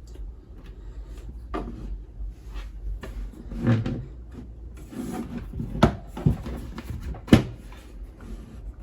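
Equipment being shifted on a wooden desk: irregular scraping and rubbing, with two sharp knocks in the second half.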